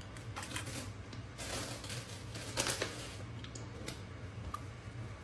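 Close-miked eating sounds: a few short crunchy bites and chewing of a toasted-bread spaghetti sandwich, the loudest about two and a half seconds in, over a steady low hum.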